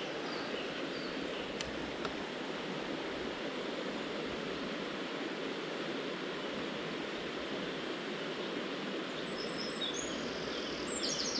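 Steady rushing of a small river's flowing water, with a bird chirping near the end.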